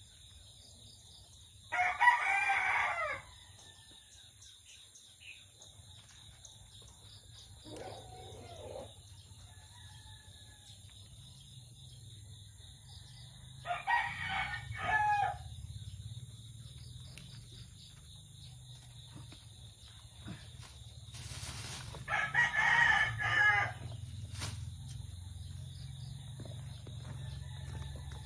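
A rooster crowing three times, each crow about a second and a half long, with a softer, lower call between the first two. A steady high insect trill runs underneath.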